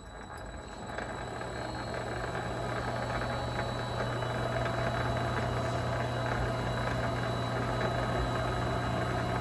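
Vevor MX 400 mini lathe spinning up, with its motor and headstock giving a steady hum and whine as the three-jaw chuck turns. It comes up to speed in about the first second, then runs evenly.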